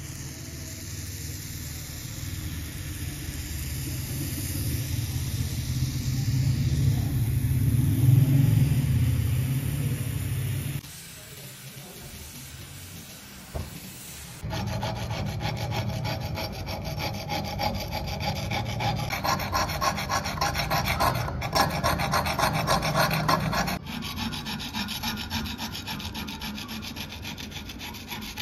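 A motorised workshop tool runs with a steady hum that grows louder for about ten seconds, then cuts off. After a brief lull comes a long run of rapid rasping strokes, as of sanding or filing, on an antique hatchet.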